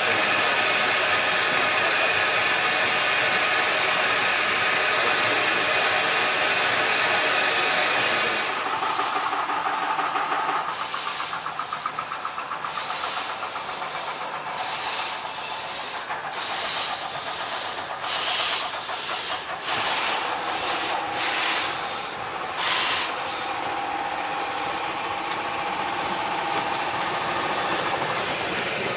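Narrow-gauge Garratt steam locomotive standing and hissing steam steadily. After about eight seconds it is heard working towards the listener in a string of irregular steam blasts from its exhaust and cylinder drain cocks, with a softer hiss as it draws up near the end.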